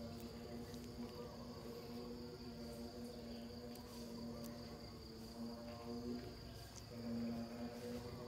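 Steady chirring of insects in the grass, with a faint steady low hum under it that drops out briefly about two-thirds of the way through.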